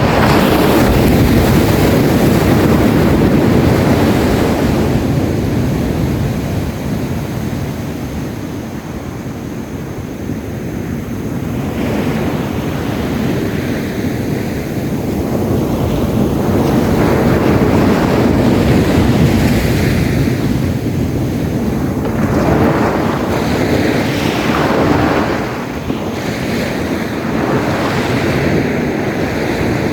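Sea waves washing and breaking on a beach, the surf swelling and easing over several seconds, with wind buffeting the microphone.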